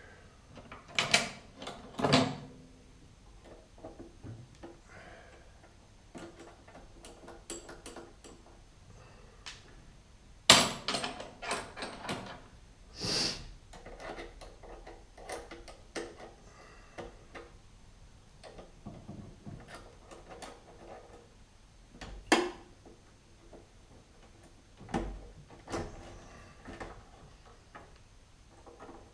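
Sporadic clicks, knocks and clunks of hand tools and metal car parts being handled, separated by quiet stretches. A short ringing metallic clink comes about 13 seconds in.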